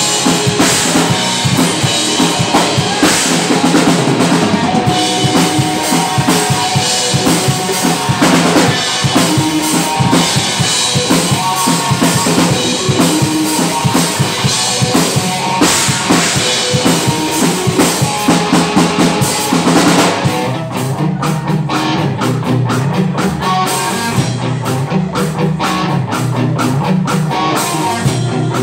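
Live rock band playing drum kit, electric guitar and bass guitar. About two-thirds of the way in, the cymbal wash drops away and the music gets slightly quieter.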